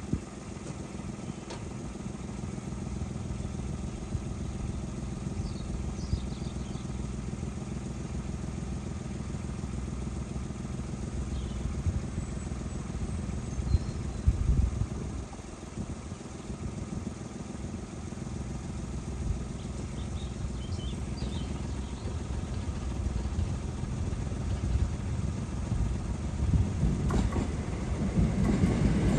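Steady diesel engine hum that grows louder over the last few seconds as a Class 170 Turbostar diesel multiple unit approaches the crossing. A couple of brief knocks come about halfway through.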